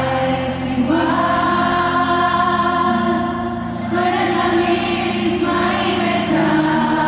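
A woman singing live into a microphone with long held notes, accompanying herself on an amplified acoustic guitar.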